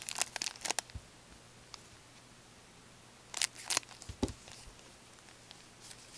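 Plastic hockey card pack wrapper crinkling and tearing open by hand: a run of crackles in the first second, another burst about three and a half seconds in, then a soft thump.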